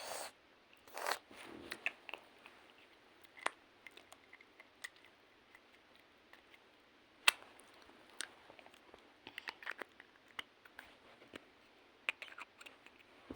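Close-up crunching and chewing of a candy, heard as scattered sharp clicks and short crackles with a louder click about seven seconds in.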